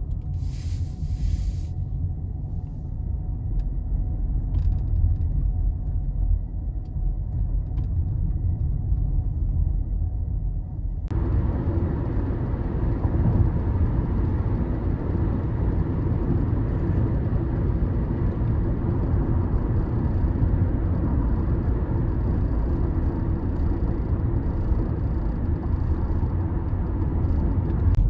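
Toyota Prius Prime cabin noise while driving: steady low road and tyre rumble, with a few faint ticks in the first several seconds. About eleven seconds in, the sound turns suddenly fuller and brighter.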